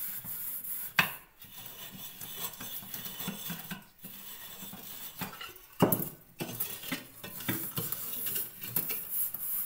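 A metal teapot being scrubbed by hand with coal-stove ash: a continuous gritty rubbing and scraping, with sharp metallic knocks of the pot about a second in and just before six seconds.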